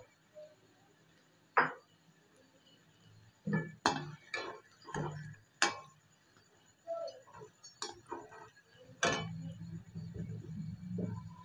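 A perforated metal frying spoon knocking and clinking against the side of a metal wok as kababs are turned in hot oil, in about a dozen sharp, irregular strikes; a low steady hum comes in near the end.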